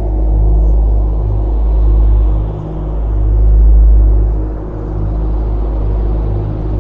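Deep, steady droning rumble with several held low tones, swelling louder a little past the middle and then easing off.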